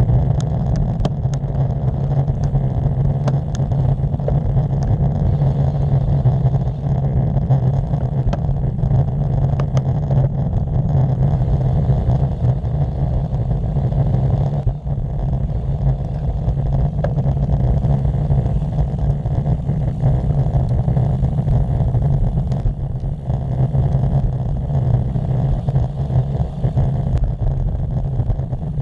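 Steady wind rumble and road noise on a bicycle-mounted action camera's microphone as a road bike rolls along the asphalt, with a few sharp clicks in the first few seconds.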